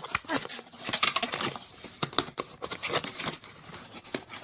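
A webcam's cardboard and plastic packaging being handled and pulled open by hand: an irregular run of small clicks, crackles and rustles.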